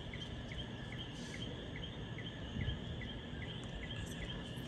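An outdoor animal's short, high chirp, repeated evenly a little over twice a second, over a steady low rumble.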